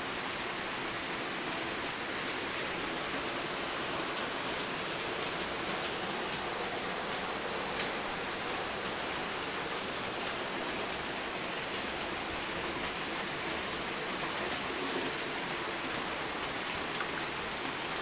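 Heavy rain falling steadily, a dense even hiss with scattered drop ticks. One sharp tap stands out about eight seconds in.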